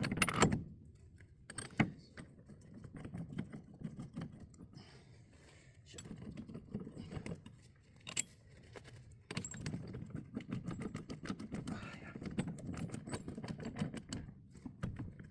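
Metal tools and parts clinking and rattling as they are handled, with scattered sharp knocks. The parts are being set up to press a wheel hub into a new wheel bearing.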